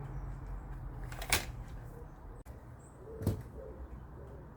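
Two sharp air rifle shots about two seconds apart.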